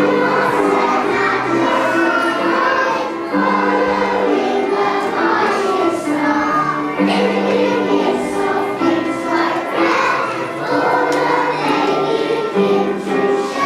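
A children's choir singing a song together over an instrumental accompaniment of long held notes.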